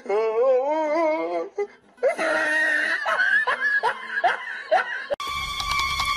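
Human laughter: a long, wavering laugh, then after a short pause a string of short giggles. About five seconds in it cuts to a steady electronic tone.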